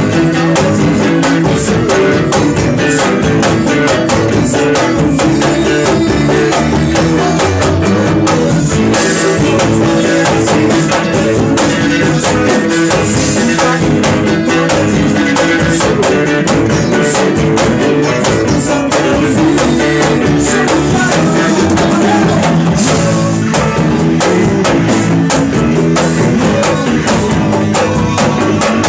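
Band music with guitar and drum kit playing a steady beat.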